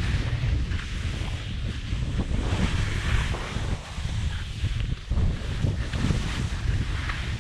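Wind buffeting a GoPro's microphone while skis hiss and scrape over snow on a steep run, with brief lulls about four and five seconds in.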